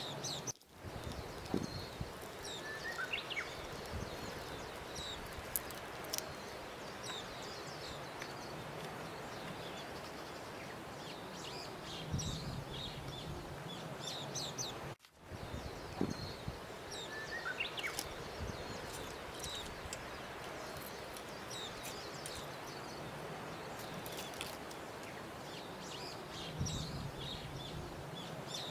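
Nature ambience of birds chirping over a steady background hiss, played as a loop that repeats about every fourteen and a half seconds, with a brief drop-out where it restarts about halfway through.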